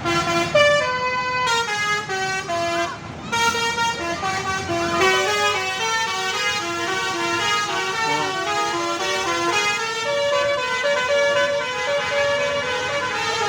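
Bus 'telolet' musical horn: a multi-tone horn playing a melody of short stepped notes, several a second, with a brief break about three seconds in before the tune carries on.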